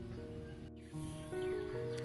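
Background music with held, gliding-free notes moving from pitch to pitch, broken by a short gap under a second in.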